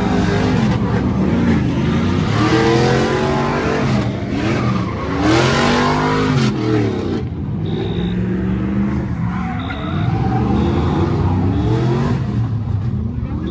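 Car engines revving up and down again and again, with a rushing noise about two to six seconds in.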